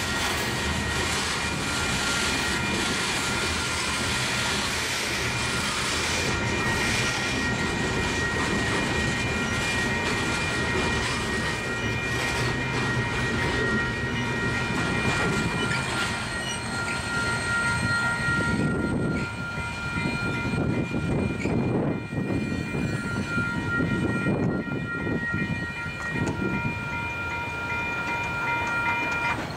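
Covered hopper cars of a freight train rolling past, wheels rumbling and clattering on the rails, with a steady high-pitched ringing tone running over it throughout.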